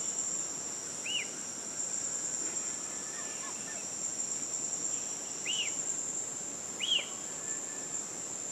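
Steady, high insect chorus of crickets or cicadas, with three short arched chirps, likely from a bird, about a second in, midway and near the end.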